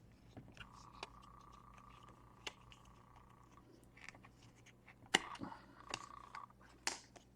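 Plastic screen bezel of a Samsung Chromebook being pried off with a plastic card: scattered faint clicks and a couple of sharper snaps as its retaining clips release, the loudest about five and seven seconds in.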